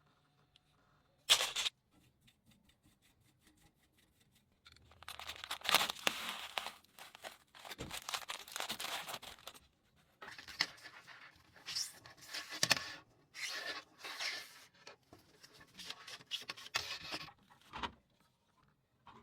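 Rustling and scraping handling noises in irregular bursts, after a single sharp click about a second in.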